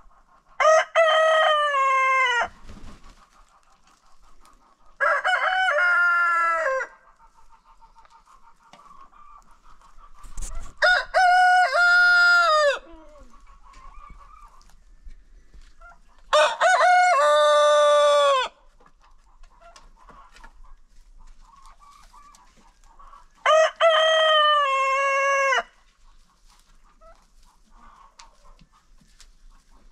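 Roosters crowing in turn: five long cock-a-doodle-doo crows of about two seconds each, spaced five to six seconds apart. Quieter clucking runs between the crows.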